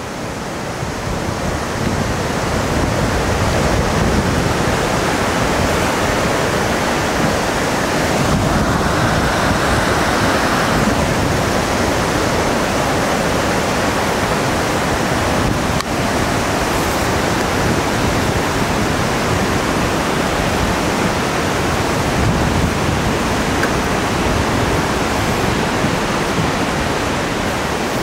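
Waterfall and mountain river water rushing, a loud, steady roar of white water.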